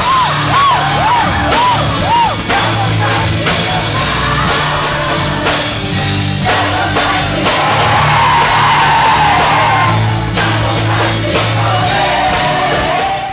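Portuguese-language Christian worship song in a rock-band arrangement, with drums, bass and voices. Near the start there is a run of five short swooping pitch arcs.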